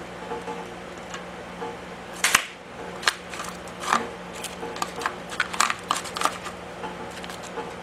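Scattered sharp metallic clicks and clinks of hand tools being handled at a cast-iron engine block, the loudest about two seconds in, over a steady low hum.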